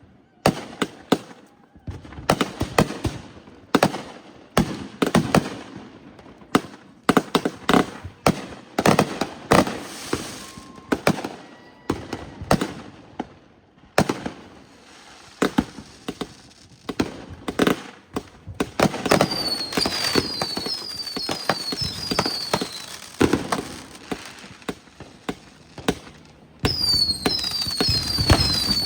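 Fireworks going off in a rapid, irregular run of sharp bangs and booms, one every second or less. Partway through, a high falling chirp starts repeating at an even pace over the bangs.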